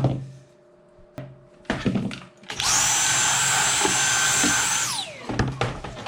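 A few knocks and handling clatter, then a small high-speed power tool runs with a steady high whine for about two and a half seconds and winds down in pitch as it is switched off, followed by more knocks.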